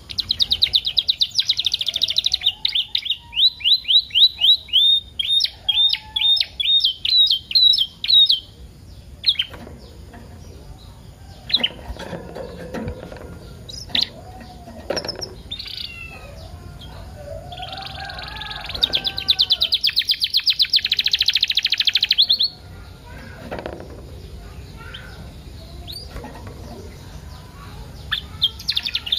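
Young canary singing: a long rolling trill of rapid high repeated notes that slows and breaks into separate notes before stopping about eight seconds in, then scattered single chirps, and a second dense, fast trill of about four seconds past the middle. This is the kind of full canary song played as a 'pancingan' to prompt other canaries to sing.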